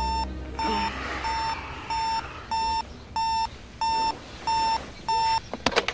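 Electronic alarm clock beeping: a single high-pitched beep repeating evenly, about one and a half times a second. It stops about five seconds in, and a few sharp knocks follow.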